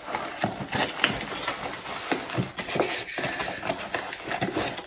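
A small cardboard box being cut with scissors and its flaps pulled open: a run of short crackles, scrapes and taps from the cardboard handling.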